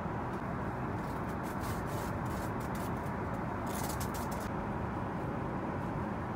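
Steady cabin noise of an Airbus A380 in flight: an even rush of airflow and engine sound. A few light rustles come about two to four seconds in.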